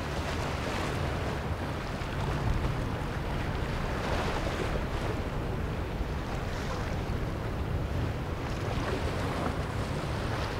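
Westport 164 superyacht cruising past: water rushing along its hull with a steady low rumble underneath, and wind buffeting the microphone. The rush swells about four seconds in and again near the end.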